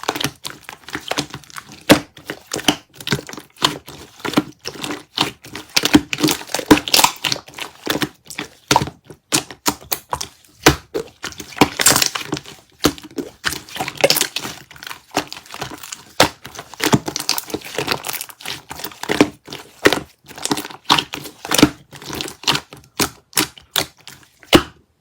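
Slime being squished and pressed by hand: a dense, irregular run of sticky crackling clicks and pops that stops abruptly near the end.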